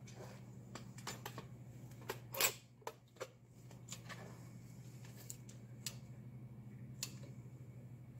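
Scattered plastic clicks and knocks from a dual-cartridge epoxy dispensing gun being loaded and handled, the loudest cluster about two and a half seconds in, over a steady low hum.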